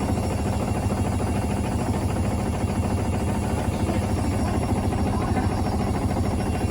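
Hoover washing machine running with a loud, steady, fast rattle and low hum: its broken shock absorbers let the drum shake the cabinet.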